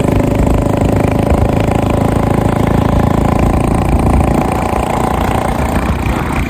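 Motorcycle engine running steadily at a fast idle, its exhaust giving a rapid, even firing beat.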